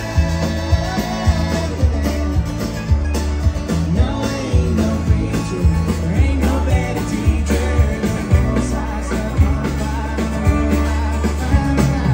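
Band music with a singer: a rock-style song with a steady beat and a strong bass line.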